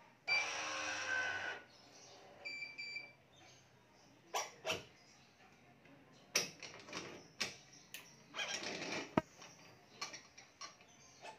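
Digital badminton stringing machine's electronic tension head running for about a second as it pulls a string to tension, then two short beeps. After that come scattered sharp clicks and knocks of clamps and string handling, with a short rasp of string being drawn through about nine seconds in.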